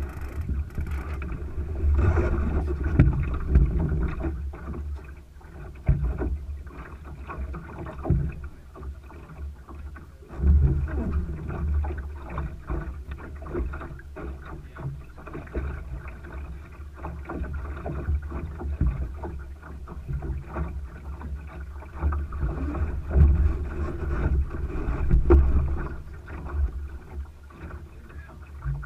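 Thistle sailing dinghy under way: a low rumble of wind and water noise that swells and fades in gusts, with scattered small knocks from the hull and rigging.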